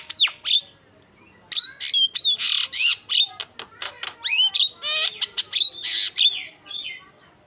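Javan myna (jalak kebo) calling in fast runs of sharp whistles that sweep down and up in pitch, mixed with harsh squawks. It pauses briefly about a second in and goes quiet just before the end.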